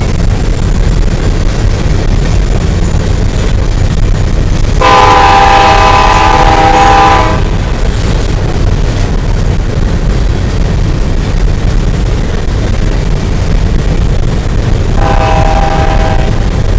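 Empty coke hopper cars rolling past with a steady low rumble, while the train's multi-chime locomotive horn sounds down the line: one long blast about five seconds in, lasting about two and a half seconds, and another starting near the end.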